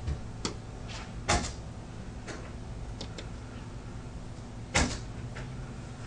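A bird pecking at a window pane: about ten irregular sharp taps on the glass, the loudest a little over a second in and again near the end, over a steady low hum.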